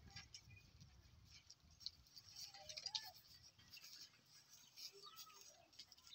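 Near silence: faint rustling and light clicks of goats shifting about on straw, with a few faint short calls about halfway through and near the end.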